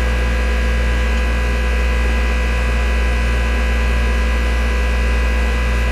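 Steady, loud low hum of running machinery, with a faint slow regular pulse in it.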